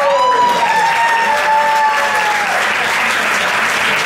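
Audience applauding, the clapping thickening from about a second in, with one long held cheer from a spectator over the first two seconds or so.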